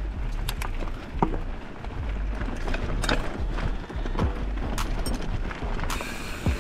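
Wind buffeting the microphone of a mountain bike's on-board camera, with irregular rattles and knocks from the bike rolling over rough trail.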